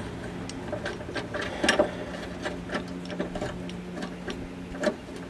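Ratchet wrench with a 13 mm socket on an extension clicking in short, uneven runs as it is worked back and forth to loosen the bolts holding the exhaust.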